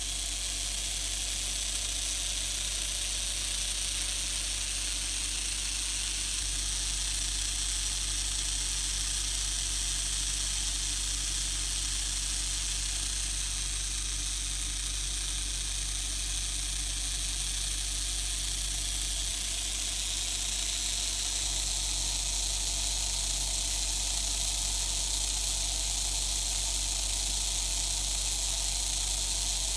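Fleischmann H0 model locomotive's open-frame electric motor running with its gears and wheels turning freely: a steady whirring hiss.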